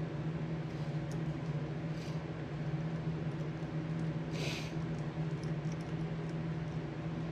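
A steady low machine hum throughout, with scattered light metallic clicks from a hand tool working on a four-barrel carburetor's throttle linkage and one short scrape about four and a half seconds in.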